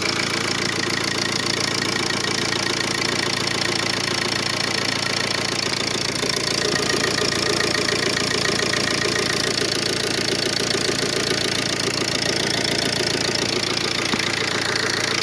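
Ford Focus diesel engine idling steadily with its usual diesel clatter.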